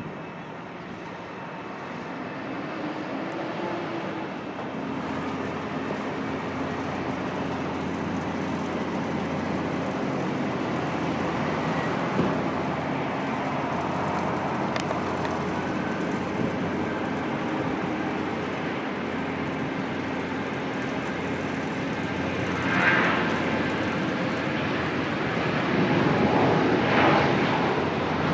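Airliner engines running at a distance, a steady drone with a faint whine that grows gradually louder, swelling further near the end.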